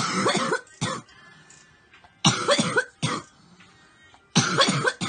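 A young woman coughing in three hard fits: a quick run of coughs at once with one more cough just after, another run a little over two seconds in followed by a single cough, and a third run near the end.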